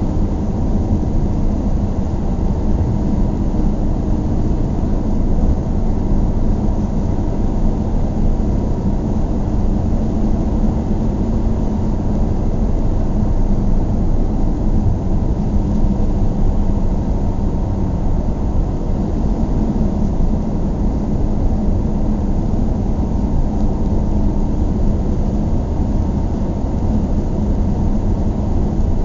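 A car driving at steady speed: even engine and road rumble with a faint steady hum, unchanging throughout.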